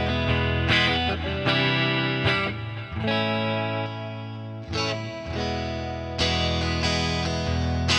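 Ibanez S320 electric guitar with DiMarzio pickups, played as a tone demo: chords struck about once a second, with one left to ring and fade for a second or two midway.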